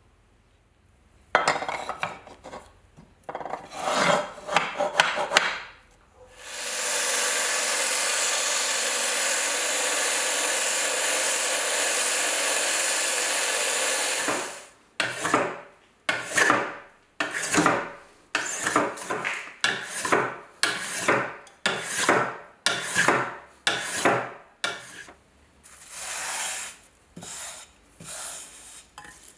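A bench power tool runs steadily through a strip of wood for about seven seconds and stops abruptly. It is followed by a hand plane shaving the wood in a long run of short strokes, about one a second.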